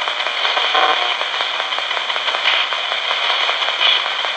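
RadioShack pocket AM/FM radio used as a ghost box, giving out steady hissing static broken by brief scraps of broadcast sound as it sweeps through the stations, about a second in and twice more later.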